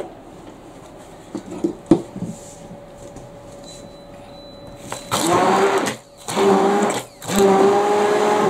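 A 600-watt hand-held stick blender puréeing watermelon chunks in a plastic bowl. After a few light knocks, it runs in three short bursts of about a second each, starting about five seconds in.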